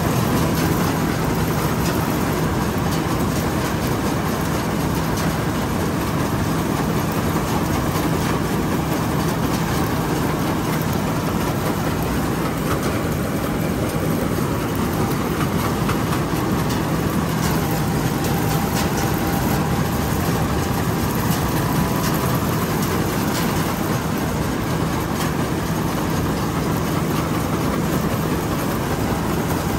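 Somboon Pattana rice combine harvester running steadily, a continuous heavy engine drone with a low hum and mechanical clatter.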